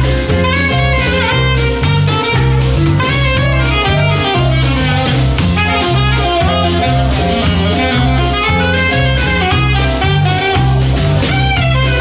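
Jazz band playing an upbeat instrumental: a saxophone-like horn melody over a stepping bass line and drum kit.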